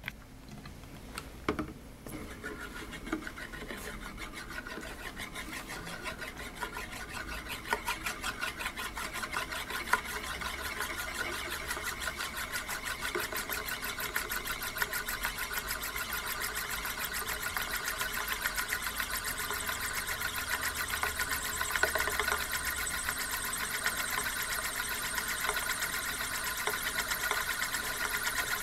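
Euler's Disk, a heavy metal disk, spinning and rolling on its concave mirror base: a whirring rattle whose pulses come ever faster as the disk tilts lower and winds down. A few sharper clicks stand out in the first couple of seconds.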